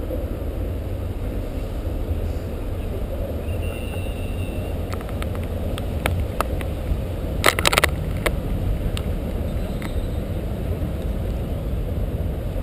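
Steady low outdoor rumble, with scattered light clicks and a short cluster of sharp knocks about seven and a half seconds in.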